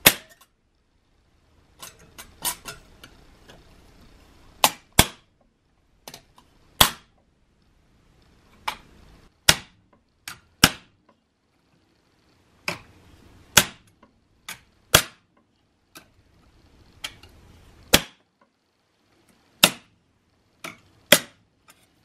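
Small hammer tapping a metal patchbox hinge piece over a brass bar held in a vise, bending it to shape: about twenty sharp taps, irregularly spaced with short pauses between them.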